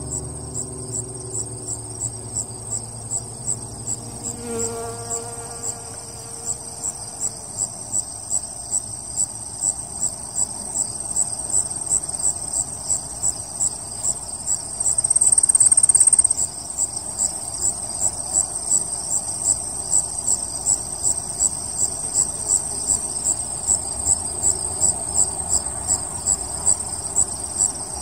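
A chorus of insects, typical of crickets: a steady high buzz with regular chirps about one and a half times a second, and a louder high trill for about a second just past the middle.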